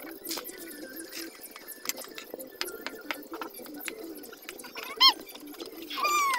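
Soft clicks and pops as a spoon stirs a simmering coconut-milk and sugar mixture in a metal pan. A sharp high chirp about five seconds in, and a longer, slightly falling chirp near the end, are the loudest sounds.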